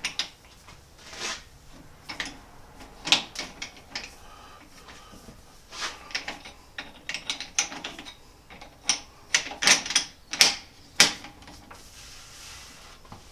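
Irregular metallic clicks and clacks of steel parts as a jaw is worked and fitted into a Wescott four-jaw geared scroll chuck, with a few sharper clacks late on.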